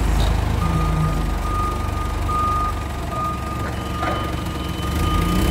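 Vehicle engine running with a steady low rumble, and an electronic warning beeper sounding over it: a thin, high, near-continuous tone comes in about half a second in, and a second, higher tone joins it past the middle.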